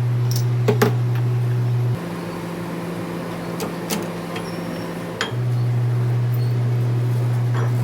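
Steady low machine hum that drops out about two seconds in and comes back about five seconds in, with a few light clicks and knocks.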